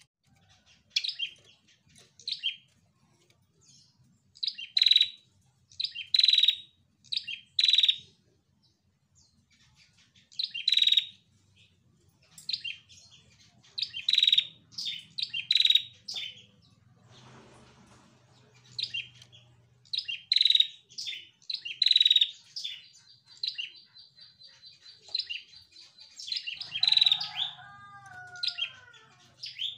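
A caged female prenjak giving loud, sharp chirps in clusters, with short gaps between bursts. About two-thirds of the way through it holds a thin, high, steady note for a few seconds. Near the end there are a few fainter, lower notes that fall in pitch.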